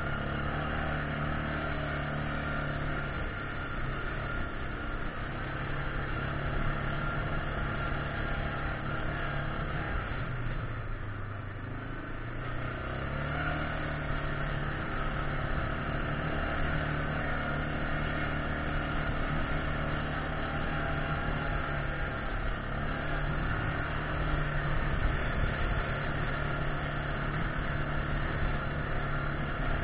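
Yamaha Grizzly 600 ATV's single-cylinder four-stroke engine running steadily under way. It eases off about ten seconds in and picks up again a few seconds later.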